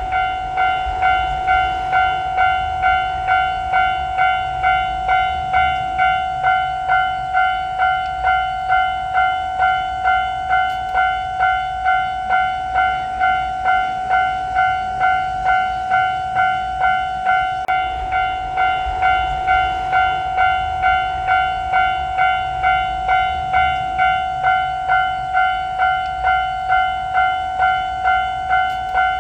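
Japanese level-crossing electronic warning bell sounding its repeated 'kan-kan' chime, about three strikes every two seconds, steady and unbroken.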